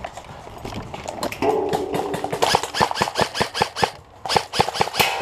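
Airsoft electric rifle firing on full auto: a rapid string of sharp clicks, about nine a second, starting about a second and a half in, pausing briefly near four seconds, then firing again.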